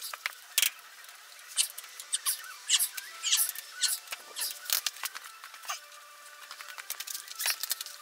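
A wrench working on the bolts of a tractor's steel frame: irregular sharp metal clicks and clinks with short squeaks, one squeak held for over a second past the middle.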